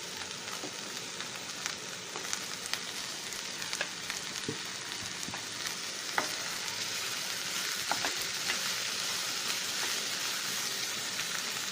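Ground spice masala frying in oil in a nonstick kadai, a steady sizzle with a few light clicks from stirring. The sizzle grows slightly louder in the second half.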